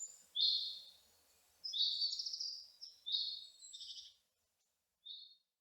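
Cheetah chirping: a series of about six high, bird-like chirps, one longer and warbling about two seconds in, with a last short, fainter chirp near the end.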